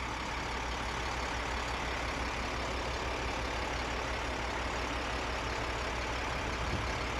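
Vactor sewer vacuum truck's engine running steadily with a low hum, powering the hydraulics while the hose boom is swung by remote.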